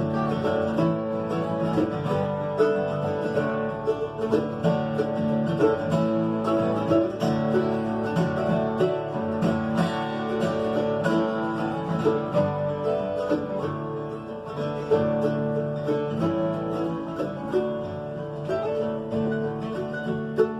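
Instrumental break of a bluegrass song played on acoustic strings: quick picked notes over a strummed guitar.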